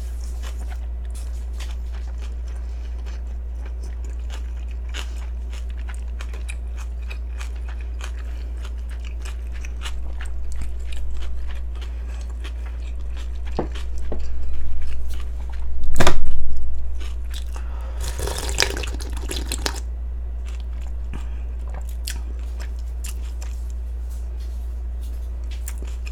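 Close-up eating sounds of cold yeolmu radish-kimchi noodles: steady crunchy chewing with many small wet mouth clicks, and a few louder slurps about halfway through. A constant low hum runs underneath.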